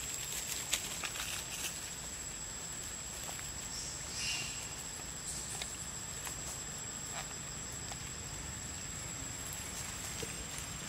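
Outdoor ambience: a steady high-pitched tone over a low background hiss, with faint scattered clicks and a brief squeak about four seconds in.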